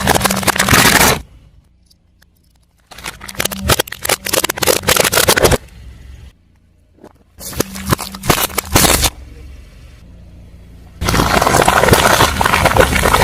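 Crunching and crackling of objects crushed under a car tyre, in four separate bursts, with a low steady hum between them.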